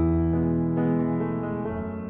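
Background music: a slow melody of held notes changing every half second or so.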